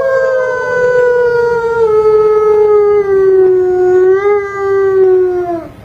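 Arctic wolf howling: one long howl lasting about five and a half seconds, slowly falling in pitch with a slight lift near the end before it drops off. Another howl overlaps it briefly at the start.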